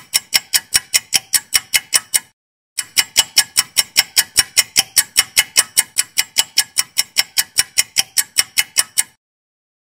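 Rapid, perfectly even ticking, about five ticks a second, like a clock-tick sound effect. It breaks off for about half a second a little after two seconds in and stops near the end.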